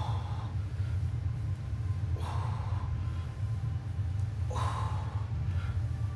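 A man breathing hard with exertion during weighted squats: a sharp, hissing breath about every two and a half seconds, one per rep. A steady low hum runs underneath.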